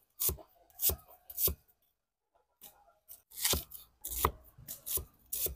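Large knife chopping an onion on a thick round wooden chopping block: sharp knocks of the blade hitting the wood, three about half a second apart, a short pause, then a quicker run of five or six.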